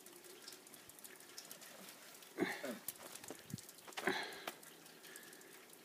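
Faint crunching and crackling of snow being handled and eaten, with two short voice sounds about two and a half and four seconds in.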